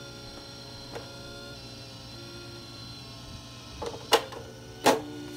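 Sklz Catapult spring-loaded pitching machine running with a steady whirr between pitches, then loud sharp cracks about four and five seconds in as it fires a baseball and the ball comes off the bat.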